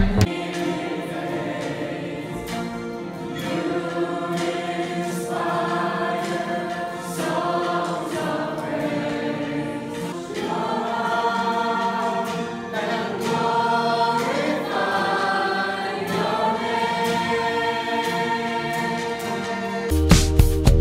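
A roomful of people singing a Christian worship song together, their voices holding long notes. Near the end it cuts sharply to louder background music with a steady beat.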